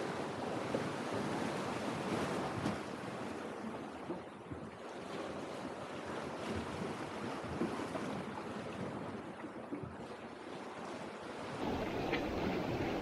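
Sea waves washing and breaking against a rocky shore, a steady surf noise.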